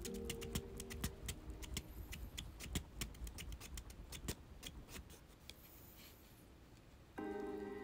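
Quick, irregular light clicks or taps, several a second, thinning out about four and a half seconds in. Soft background music plays under the first two seconds, drops out, and comes back louder near the end.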